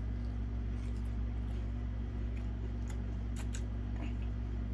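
Eating mouth sounds: faint chewing and two sharp mouth clicks a little over three seconds in, over a steady low hum.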